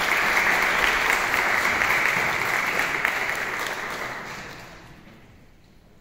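Audience applauding, the clapping fading away about four to five seconds in.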